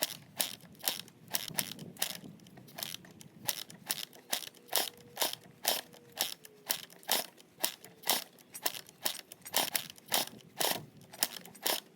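Crunching footsteps, about two steps a second, steady throughout.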